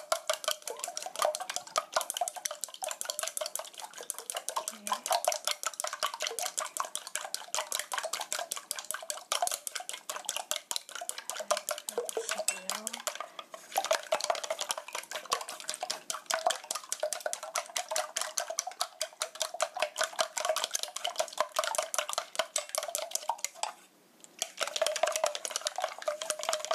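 Eggs being beaten fast with wooden chopsticks in a stainless steel mixing bowl: a rapid, continuous clatter of the chopsticks against the steel, with the bowl ringing. The beating pauses briefly near the end.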